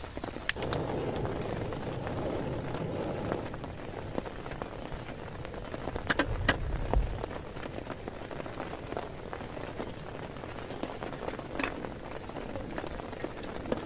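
Rain falling steadily, with a few sharp taps scattered through and a brief low rumble about six seconds in.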